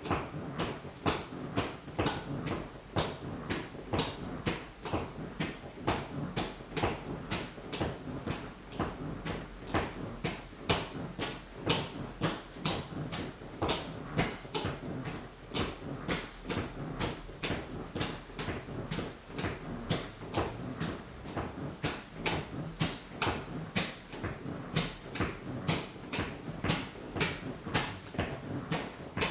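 White sneaker sole tapping on a wooden floor in a steady rhythm, about two taps a second.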